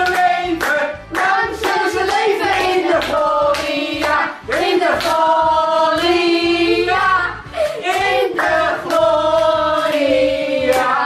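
Voices singing together over music, with hand clapping along.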